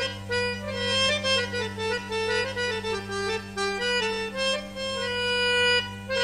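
Instrumental interlude of an Arabic love song with no singing: a quick, ornamented melody of short notes over a steady low drone.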